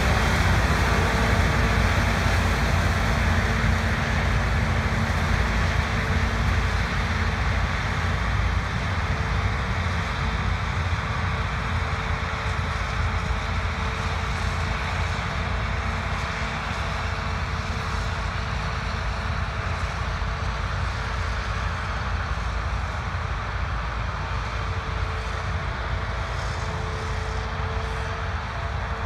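Heavy harvest machinery running steadily, a deep engine drone with a steady whine above it, slowly getting quieter over the half-minute.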